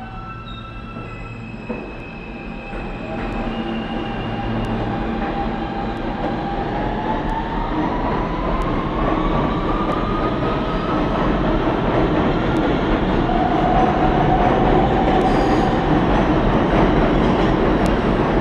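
R160 subway train pulling out of an underground station: the traction motors whine, rising steadily in pitch as it accelerates, over wheel and rail rumble that grows steadily louder.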